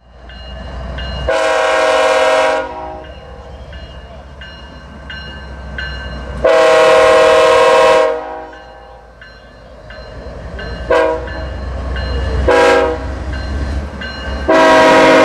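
Diesel locomotive air horn sounding a multi-note chord: two long blasts, two short toots, then a long blast that carries on at the end. A steady low diesel rumble runs underneath.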